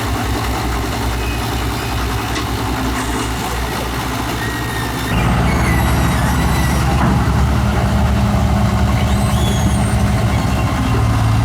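Excavator's diesel engine running steadily, stepping up louder and heavier about five seconds in. A few faint high-pitched squeaks come in over it.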